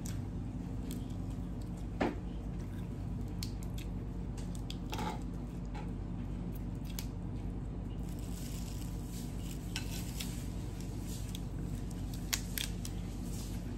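Cooked crab shell being pulled apart and picked by hand, giving scattered small cracks, clicks and wet squishing, with a sharper crack about two seconds in and another near the end. A steady low hum runs underneath.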